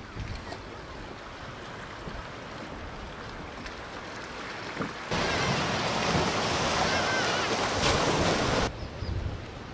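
Sea surf washing among shore rocks: a low, even wash at first, then from about five seconds in a much louder rush of foaming water that cuts off abruptly about a second before the end.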